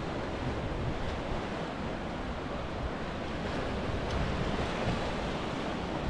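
Sea waves washing against a rocky shore, steady, with wind rumbling on the microphone.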